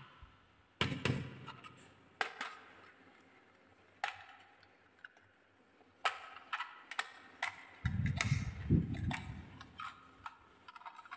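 Sharp clicks and knocks of a die-cast toy truck being picked up, turned over and handled, about a dozen at uneven spacing, with a short low rumble about eight seconds in.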